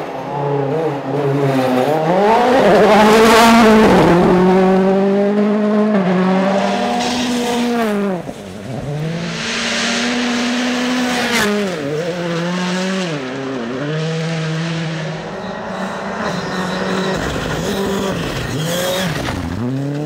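Rally cars with turbocharged four-cylinder engines driving flat out on a gravel stage, revving hard and dropping in pitch through gear changes and sharp lifts off the throttle, with a few sharp cracks and a hiss of tyres and gravel. Loudest as a car passes close about three seconds in.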